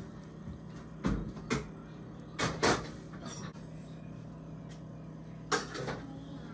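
A handful of short, soft knocks and clicks, typical of dishes and utensils being handled in a kitchen, over a low steady hum.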